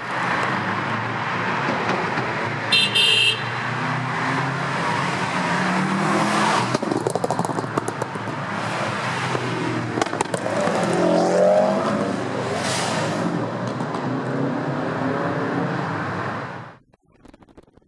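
A convoy of Subaru Imprezas driving past with engines running, one revving up with a rising pitch about eleven seconds in. A short horn toot sounds about three seconds in, and the sound cuts off suddenly near the end.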